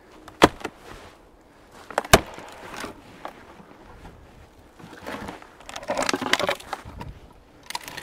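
Footsteps crunching in snow and dead wood cracking as frozen deadwood is broken for firewood. There are two sharp cracks about half a second and two seconds in, then a longer stretch of crunching around five to six and a half seconds.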